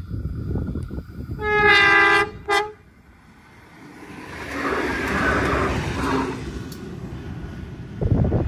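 Endeavour diesel railcar's horn sounding one long blast and then a short one, followed by the railcar passing close by, its engine and wheel noise swelling and then fading. Near the end comes a sudden loud low rumble of wind on the microphone.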